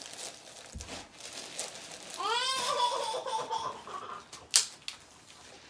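A child's high, drawn-out laughing squeal that rises in pitch and holds for about a second, over light handling of a gift box and paper. A sharp click comes about four and a half seconds in.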